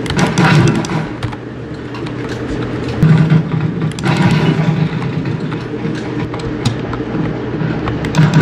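Mechanical keyboard keys clacking in quick irregular clicks over a steady low droning hum.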